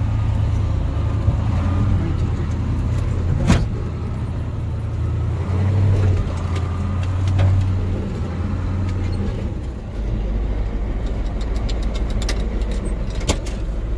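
Off-road truck engine running under load, heard from inside the cab as it crawls over rough ground, with a sharp knock of the cab jolting a few seconds in and another near the end. The engine note drops to a lower drone about two-thirds of the way through.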